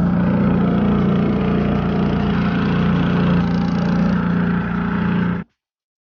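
Motorboat engine running steadily at a constant pitch, then cutting off suddenly about five and a half seconds in.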